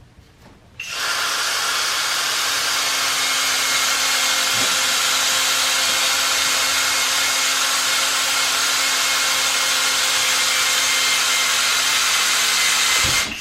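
Battery-powered caulking gun's electric motor running steadily under load as it drives moldable sealant into a cathode bar cavity. It starts about a second in and stops briefly near the end.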